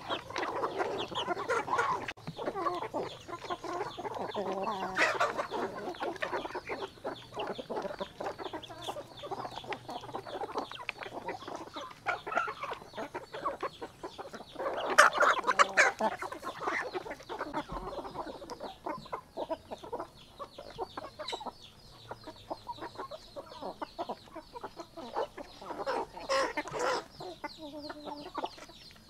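A flock of chickens clucking steadily as they feed, with a few louder calls standing out about five seconds in, midway, and near the end.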